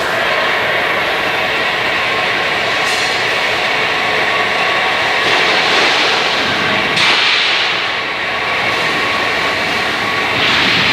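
Loud, steady machine noise with a faint whine running through it, swelling louder a couple of times.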